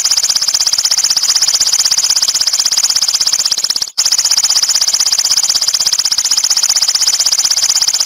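A lovebird's long, very rapid, high-pitched chattering trill (the 'ngekek' call), breaking off once briefly about four seconds in.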